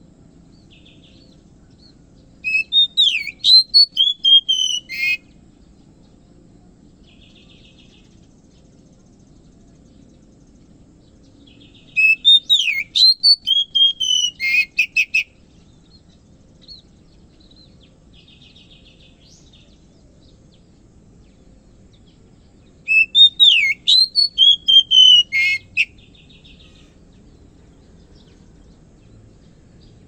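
Oriental magpie-robin singing: three loud phrases of sweeping whistled notes, each about two and a half seconds long and about ten seconds apart, each ending in quick clipped notes. Faint short rattling notes come in the pauses between phrases.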